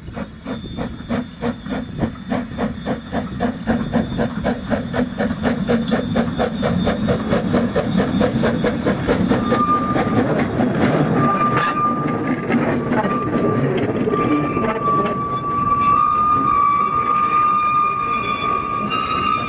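Narrow-gauge steam saddle-tank locomotive working a train of coaches, its exhaust beating in a steady rhythm of about three chuffs a second and growing louder as it nears. About halfway a high, steady squeal joins in and carries on as the coaches pass.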